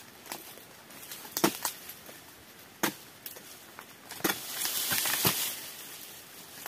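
Long-pole harvesting sickle chopping at oil palm frond bases: a series of sharp cutting strokes, with a longer rustling noise about four and a half to five and a half seconds in.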